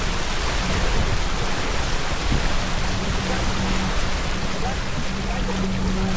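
Steady wind rushing over the microphone, with water washing along a sailboat's hull under way.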